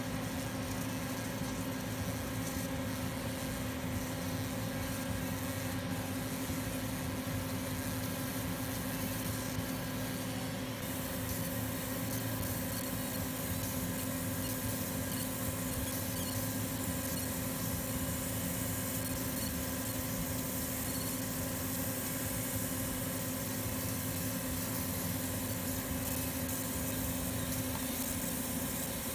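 60 W fiber laser engraver running while it marks a painted steel sledgehammer head: a steady machine hum with two constant tones under an even hiss. The high hiss grows louder about ten seconds in.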